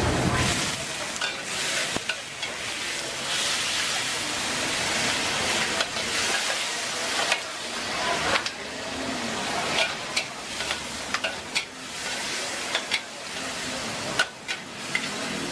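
Greens and meat stir-frying in a hot wok over a gas burner, sizzling steadily. From about halfway through, a metal spatula scrapes and clinks against the wok a little more than once a second.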